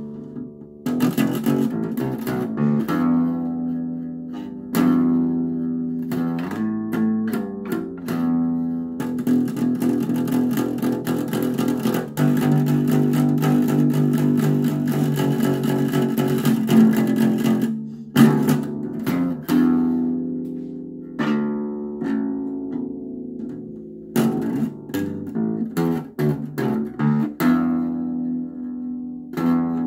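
Acoustic bass guitar played solo: plucked notes and phrases that ring out and die away, with brief pauses between phrases.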